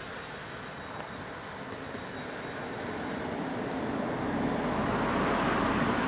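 Class 156 Sprinter diesel multiple unit running slowly along the station platform. Its diesel engine and the wheels on the rails grow steadily louder as it draws nearer.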